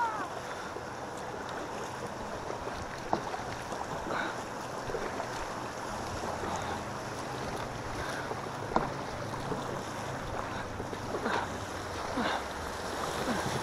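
Choppy river rapids rushing and churning around a kayak's hull, with wind on the microphone and a few short splashes from kayak paddle strokes.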